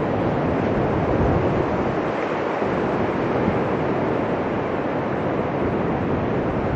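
Ocean surf breaking on a sandy beach: a steady wash of waves with no distinct single crashes.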